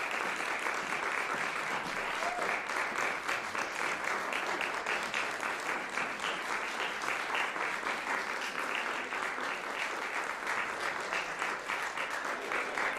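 An audience applauding, with steady clapping throughout.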